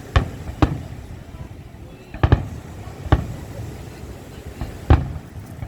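Fireworks exploding overhead: a series of sharp bangs at irregular intervals, two of them close together a little after two seconds in, each with a short echoing tail.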